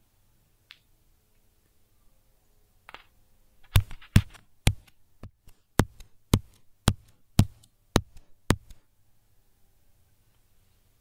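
A run of about a dozen sharp knocks, roughly two a second, starting about four seconds in and stopping near nine seconds, being recorded live as a foley effect. A couple of faint clicks come before them.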